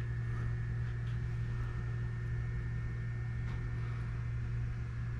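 Steady low hum in a small room, with a few faint soft ticks.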